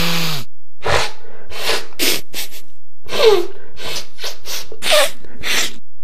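Human sneezing in a quick run of short, explosive sneezes, about two or three a second, some with a voiced falling cry.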